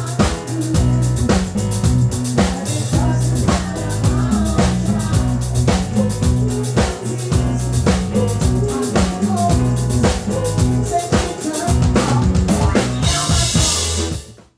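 Band music with a drum kit keeping a steady beat over a stepping bass line. A cymbal wash comes near the end, then the music fades out quickly.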